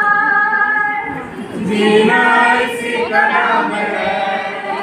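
A woman singing solo into a microphone, holding long notes over three phrases, with no instruments audible.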